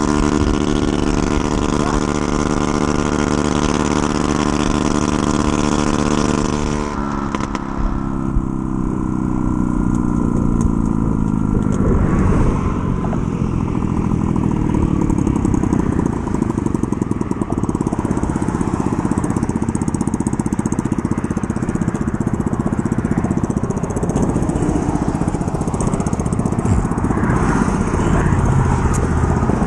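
Honda Ruckus 49 cc single-cylinder four-stroke scooter engine running at a steady cruising pitch, then falling in pitch about seven seconds in as the throttle eases off. After that the rush of wind on the microphone at riding speed dominates, with the engine underneath.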